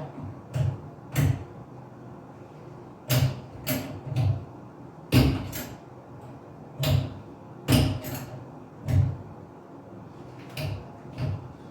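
About a dozen irregular knocks and clunks while a stuck old shower head is being worked at to loosen it.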